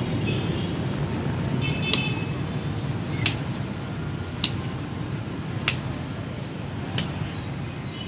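Feathered shuttlecock kicked back and forth between two players: four sharp taps, a little over a second apart, from about three seconds in. A steady rumble of road traffic runs underneath.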